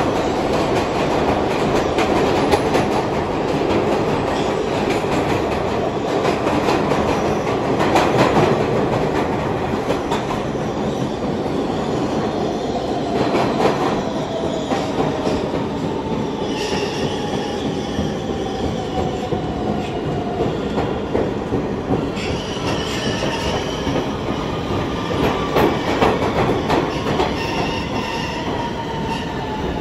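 R160B Siemens subway car running with steady rumble and rail clicks, then braking into a station: a traction-motor whine falls slowly in pitch, twice, and high squealing comes in over the second half.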